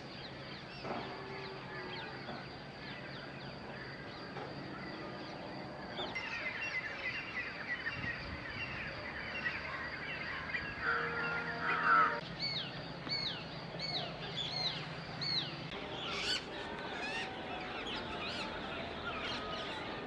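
Dawn chorus of many birds chirping and calling over one another, with a louder call about halfway through followed by a run of about five quick, high, repeated calls.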